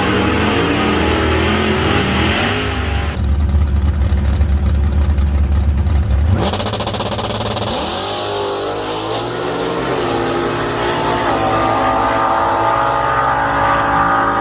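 Drag-racing car engines revving and accelerating. A loud low rumble runs from about three to six seconds in, then the engine pitch climbs as a car pulls away, with other engines running underneath.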